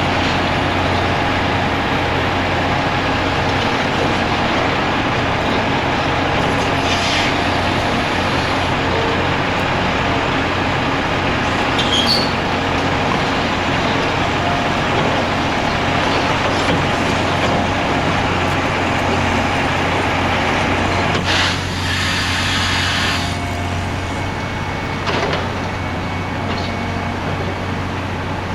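Heavy diesel machinery running steadily with a deep engine hum. A burst of hissing comes about three-quarters of the way through, after which it runs a little quieter.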